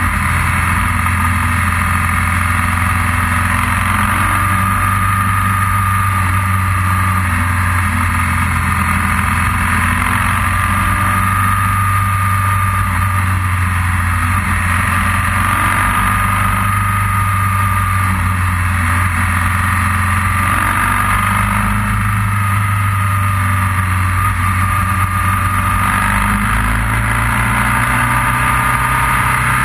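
Motorcycle engine running steadily while riding, its low note stepping up slightly near the end.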